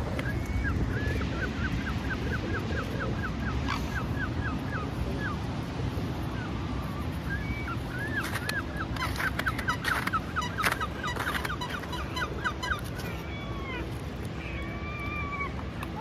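Waterfowl calling. There are two runs of rapid, evenly repeated short calls, about five a second, then a few separate drawn-out calls near the end, over a steady low rumble.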